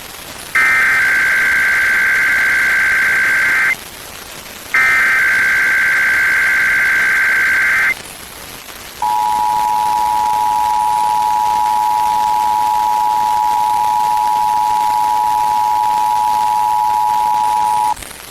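Emergency Alert System weekly test as aired on FM radio. Two SAME digital header bursts, each a shrill warbling data screech about three seconds long, are separated by a one-second gap. About a second after them comes the two-tone EAS attention signal, a steady tone pair held for about nine seconds.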